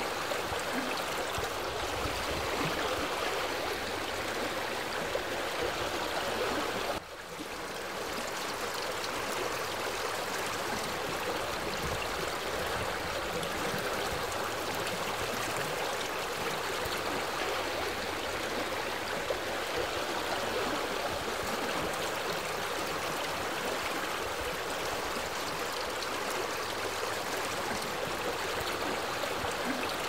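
A small rocky mountain stream running steadily, water splashing down a little cascade over boulders into a shallow pool. The rushing is even throughout, dipping briefly once about seven seconds in.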